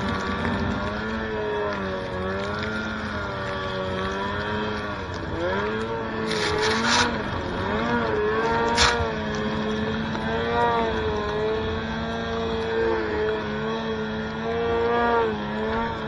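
Snowmobile engine revving up and down as the sled ploughs through deep powder, its pitch rising and falling with the throttle. Two brief hissing bursts of snow spray, about six seconds in and again near nine seconds.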